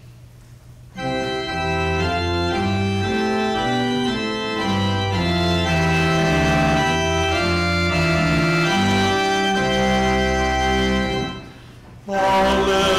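Church organ playing a short introduction in held, changing chords, starting about a second in and breaking off briefly near the end, when a man's singing voice comes in with it.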